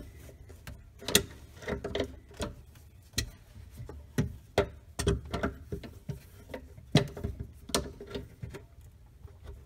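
Pliers gripping and turning a faucet mounting nut from under a sink: a series of irregular clicks and knocks, a few of them louder, as the jaws bite and shift on the nut.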